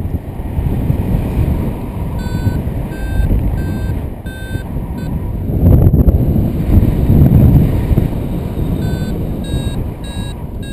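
Wind buffeting the microphone in paraglider flight, the loudest sound throughout. Over it, a paragliding variometer gives short, even beeps a little more than once a second, in a run from about two seconds in and again near the end; the beeping signals the glider is climbing in rising air.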